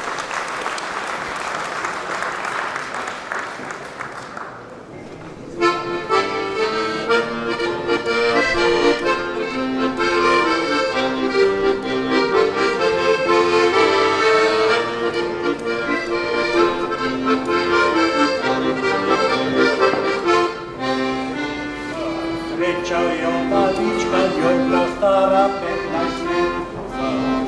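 Brief applause, then a piano accordion starts about five seconds in and plays a folk tune with steady sustained chords.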